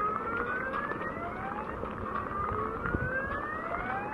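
Electronic car alarm sounding in slow rising sweeps, each climbing in pitch over about two seconds before starting again, over a steady rush of flood water.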